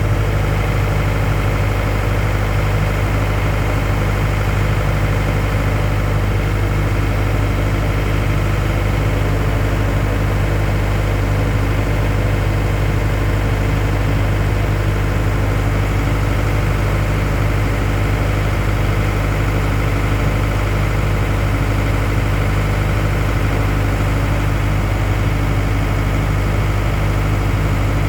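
Steady, unchanging low drone of a machine running, with a strong deep hum.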